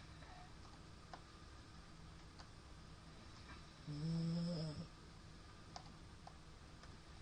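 A middle-aged man snoring in his sleep: one snore with a steady low pitch, about a second long, starting about four seconds in.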